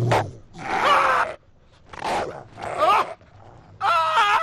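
Several short bursts of a man's yells and groans, mixed with a small dog's growling and barking.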